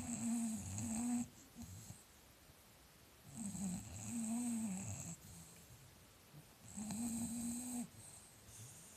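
English bulldog snoring: three long, raspy snores about three seconds apart, each with a buzzing tone and a hiss, the sound of the breed's short, flat-faced airway.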